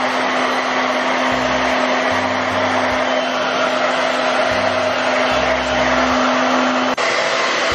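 Handheld hair dryer blowing on a wet cat: a steady rushing air noise with a steady hum. The hum cuts off abruptly about seven seconds in.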